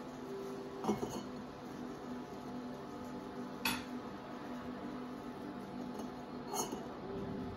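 Three sharp clinks of metal kitchenware, pots and utensils knocking, spaced about three seconds apart, over a steady low hum.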